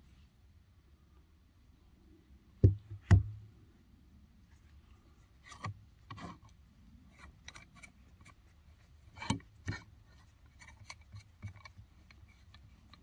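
Handling noise from a revolver and a tripod shooting rest: two heavy knocks about half a second apart, then a run of light clicks and taps.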